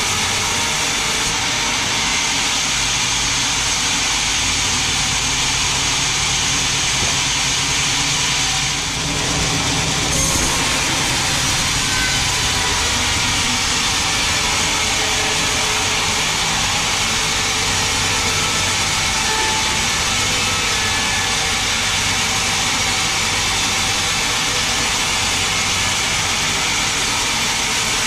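Large band sawmill running, its blade cutting lengthwise through a big mahogany log to slice off boards. A steady, loud machine noise with a brief dip about nine seconds in.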